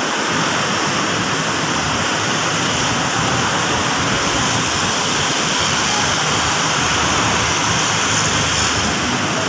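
Steady, even roar of ambient noise from traffic and vehicle engines around a covered van terminal, with no distinct events standing out.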